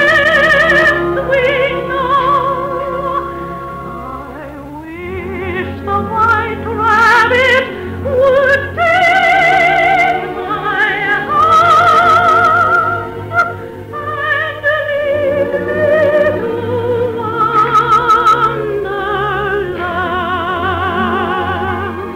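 A song from an old radio musical: a solo singer in a trained, operatic style with strong vibrato, moving through long held and rising notes over orchestral accompaniment.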